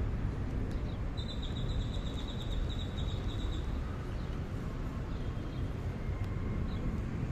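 Steady low rumble of wind on the microphone and tyre noise as a bicycle rolls over asphalt. About a second in, a bird gives a rapid high trill lasting a couple of seconds, with a few short chirps later.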